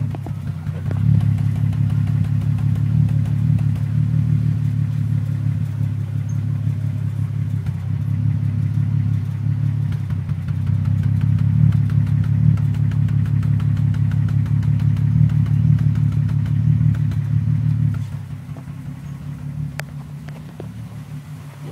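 2001 VW GTI's 2.8-litre 12-valve VR6 engine running with a misfire that has persisted after a new coil pack, spark plug and injectors and ohm-tested plug wires. It runs steadily, then gets quieter about 18 seconds in.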